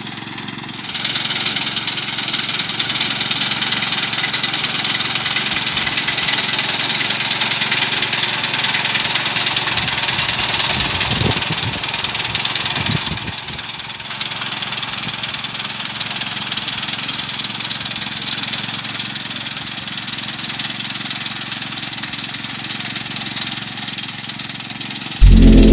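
The 5 hp engine of a Kamco KR120 walk-behind power reaper running steadily under load as the machine cuts standing paddy. Right at the end a much louder low hum with several steady tones cuts in abruptly.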